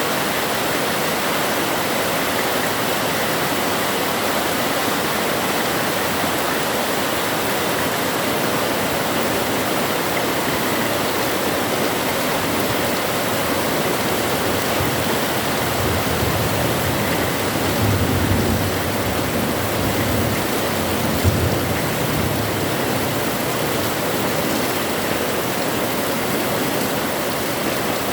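Heavy rain falling steadily, a dense even hiss. A low rumble rises and fades about two-thirds of the way through, with one short knock in it.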